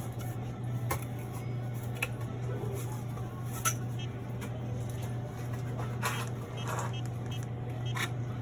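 Steady low electrical hum with a few scattered clicks and taps, and a run of short, faint beeps in the last couple of seconds from a card payment terminal being keyed in.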